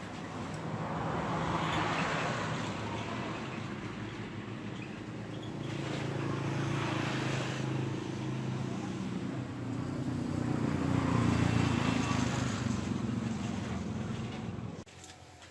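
Motor vehicle engine noise swelling and fading three times, as if vehicles are passing, cutting off suddenly near the end.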